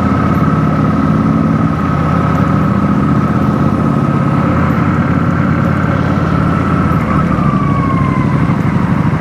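Cruiser motorcycle engine running steadily under way, with road and wind noise. A thin, steady high whine runs alongside and glides down in pitch near the end.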